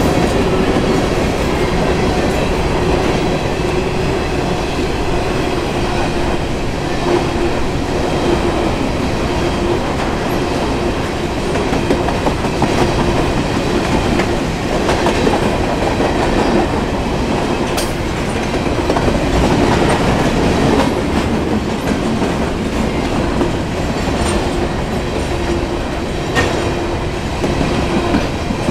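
Covered hopper cars of a freight grain train rolling steadily past, steel wheels running over the rails with a continuous rumble, occasional sharp clicks and a steady tone underneath.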